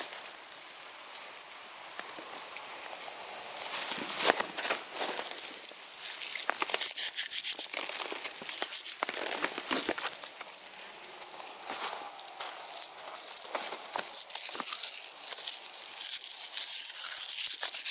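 Continuous dry rustling and crackling, made of many small sharp crackles like brittle material being crumpled or handled. It gets somewhat louder about four seconds in and again near the end.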